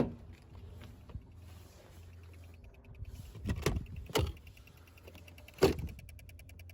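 Clicking from a BMW E90 318i that will not crank when a start is tried: a sharp click at the start, a few clicks around the middle and another one later, over a faint steady hum, with a fast faint ticking near the end. The owner suspects a flat battery.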